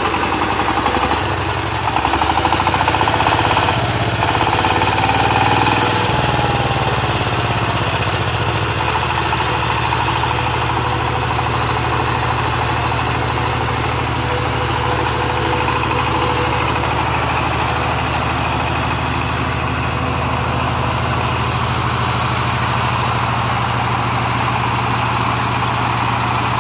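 Diesel engine of a trailer-mounted generator set running steadily. Its note wavers for the first several seconds, with a tone gliding down about six seconds in, then settles into an even run.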